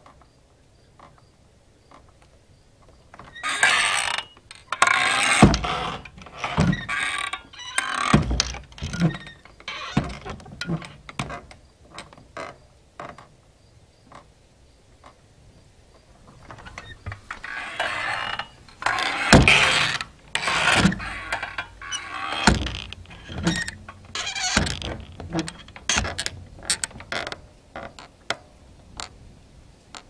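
Swinging saloon doors pushed through twice: each time a swishing creak as the doors swing open, then a run of knocks as the doors flap back and forth and settle, fading out.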